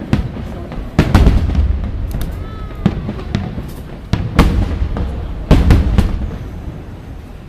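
Fireworks shells bursting overhead: about six sharp booms, each with a low rumbling tail, the loudest about a second in and two close together near the end.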